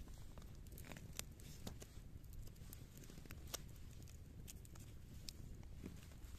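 Ahti Vaara puukko knife shaving a bark-covered wooden stick: faint, irregular crisp cuts and short scrapes as each curl of wood comes off.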